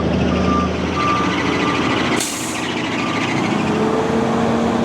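Truck reversing: its backup alarm beeps at about two a second over the running diesel engine, and the air brakes give a short hiss about two seconds in.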